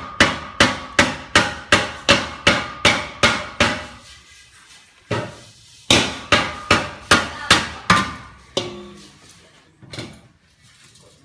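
Hammer blows on metal in a large aluminium basin fitted with a perforated metal plate, landing steadily about two to three a second, each with a brief metallic ring. The blows pause about four seconds in, start again, and thin out to a few scattered knocks near the end.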